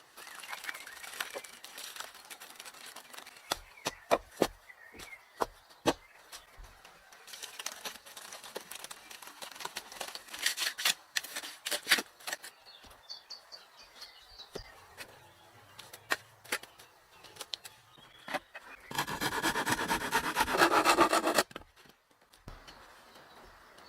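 Hand work on wood: scattered knocks and taps with stretches of scraping and rubbing, and a louder rasping passage lasting a couple of seconds near the end.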